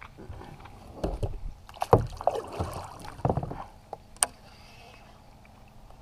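Knocks and swishes of paddle and gear against a fishing kayak's hull as the angler moves about, with water sloshing, then a single sharp click about four seconds in.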